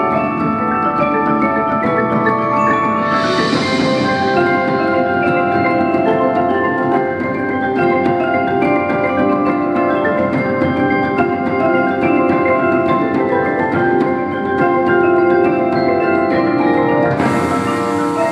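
Front ensemble of marimbas and other mallet percussion playing dense, fast runs of notes. A bright hissing wash swells briefly about three seconds in and again near the end.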